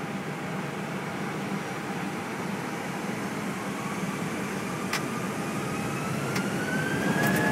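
Airliner jet engines heard from inside the cockpit over a steady rumble, their whine rising in pitch from about halfway through as they spool up. A few light clicks sound near the end.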